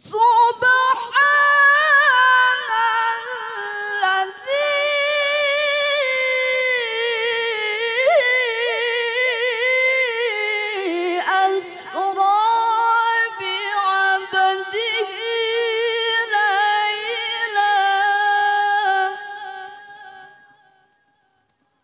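A woman reciting the Qur'an in melodic tilawah into a microphone: one long sung phrase of held, wavering, ornamented notes that trails off near the end.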